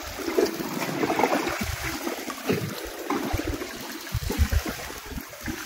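Sea water lapping and splashing against the hull of an inflatable boat, with irregular low buffeting.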